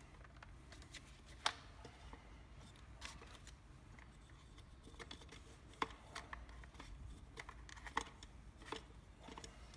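Light handling noises from working on a cordless fencing stapler's cylinder: scattered small clicks and taps of the tool's parts, the sharpest about one and a half, six and eight seconds in.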